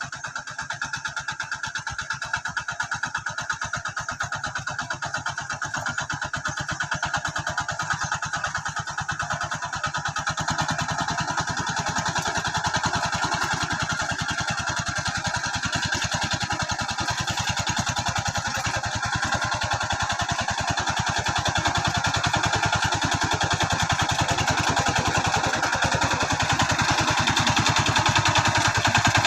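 Engine of a rice-field hand tractor (plough tractor) running steadily with an even, rapid firing beat, growing gradually louder over the stretch.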